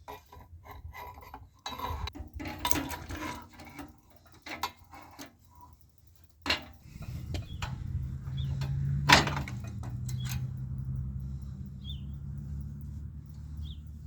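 Metal parts and tools clinking and knocking as a bolt is worked through a steel steering-head plate. About halfway in a steady low hum starts and continues, and one sharp knock stands out soon after.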